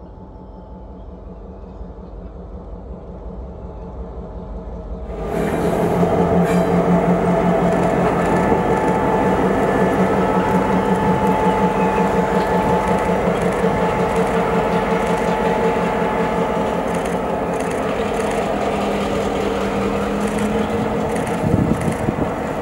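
A train approaching and passing close by. A low rumble builds for about five seconds, then the train's noise comes in suddenly: a steady engine drone with wheels clicking over the rails.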